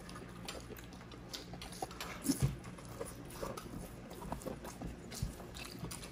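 Close-miked chewing and mouth sounds of two people eating chicken and rice with their hands: scattered soft wet clicks and smacks, slightly louder about two seconds in.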